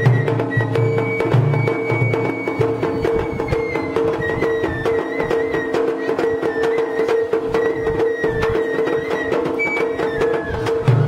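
Japanese festival music from a boat-shaped festival float: a high, stepping flute melody over a steady held tone and rapid, even clicking percussion. A low drum-like rumble drops out about two seconds in and returns near the end.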